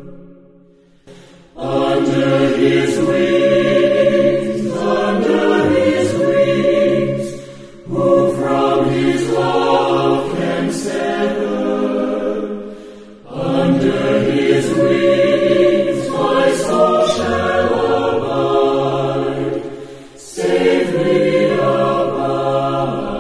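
A choir singing a slow hymn in long, held phrases, with short breaks between the lines.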